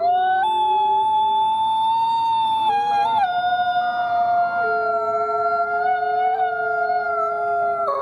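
Several wolves howling together in a chorus: long, overlapping howls held at different pitches, one sweeping sharply up right at the start.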